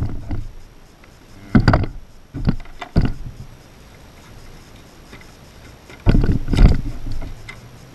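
Cardboard boxes being handled and opened by hand: flaps and box sides rubbing, scraping and knocking against a hard surface in several short bursts, the longest and loudest about six seconds in.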